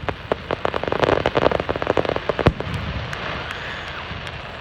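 Fireworks going off in a rapid string of sharp pops and crackles, thinning out about two and a half seconds in.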